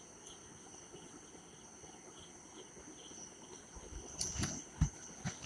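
A metal spatula scrapes and knocks against a metal kadai while stirring frying onion-ginger masala, in a few short strokes near the end, the loudest about a second before the end. Underneath is a faint steady high-pitched whine with soft regular pips.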